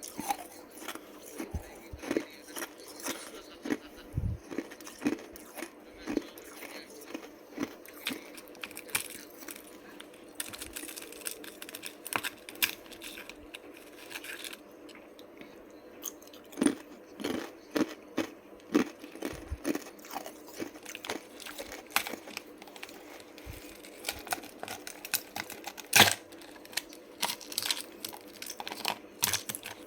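Ice being bitten and chewed close to the microphone: irregular crunching and crackling, several loud cracks a second at times, with a sharp bite standing out near the end.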